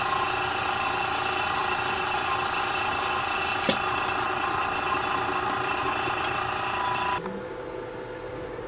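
Machinery running steadily, a hiss and hum with several fixed tones. A click comes a little over three and a half seconds in as the high hiss drops away. About seven seconds in most of the hum cuts off suddenly, leaving a fainter hum.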